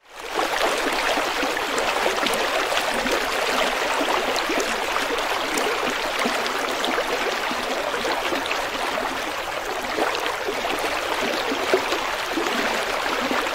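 Shallow rocky stream running over stones: a steady rush of flowing water that fades in at the start.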